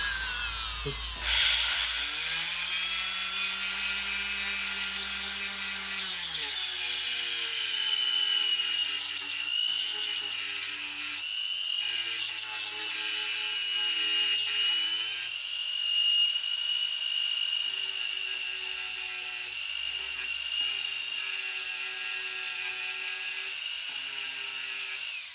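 Dremel rotary tool fitted with a grinding stone, running at high speed with a high whine as it grinds the grit off the back of cloth-backed sandpaper. It spins up at the start, its pitch dipping slightly as it loads up, and it cuts off at the end.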